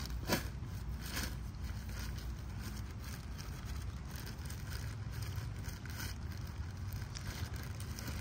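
Steady low rumble of wind on the microphone, with a few short sharp sounds, the clearest just after the start.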